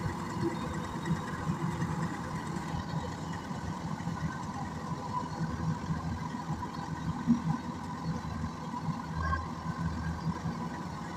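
Rice combine harvester's diesel engine running steadily.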